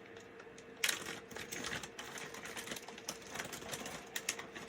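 A sharp click about a second in, then a run of small irregular clicks and taps from hand tools and tiny parts being handled on a workbench, over a faint steady hum.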